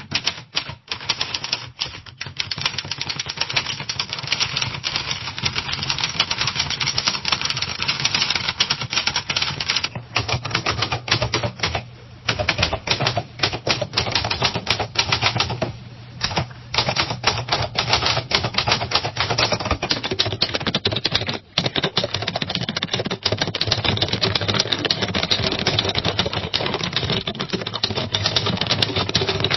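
Typewriter keys struck in rapid, continuous typing, a dense run of clacks broken by a few short pauses.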